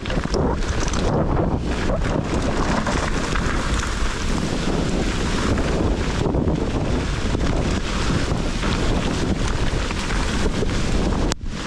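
Steady rush of wind buffeting the camera microphone as a mountain bike is ridden down a wet, muddy trail, with a brief drop-out near the end.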